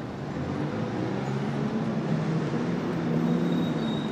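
Street traffic with a passing vehicle's engine hum that swells, loudest about three seconds in.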